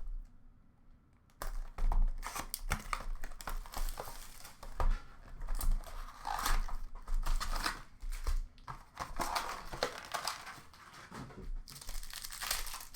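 Foil wrappers of Upper Deck Allure hockey card packs being torn open and crinkled, starting about a second and a half in and going on with many sharp crackles.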